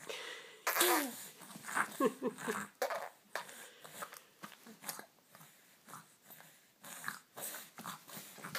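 A nearly four-month-old baby makes a few short gliding coos, then blows wet raspberries, the lips sputtering in many short bursts. A stuffed-up nose adds snuffly breathing.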